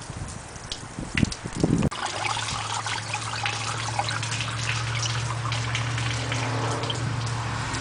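Dirty wash water trickling and dripping as it drains from a washing machine tub onto the floor. About two seconds in, a steady low hum joins the spattering water.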